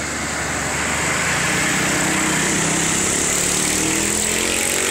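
A motor vehicle engine running, its hum growing clearer about halfway through and rising a little in pitch, over a steady hiss of road noise.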